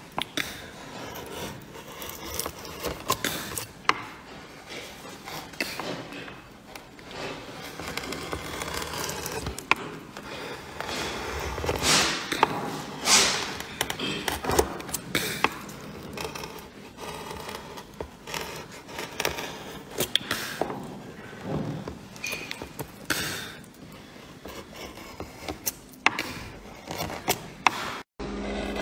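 Hand wood carving with a chisel cutting into a wooden relief panel: an irregular run of short scraping cuts and light knocks as chips are pared away.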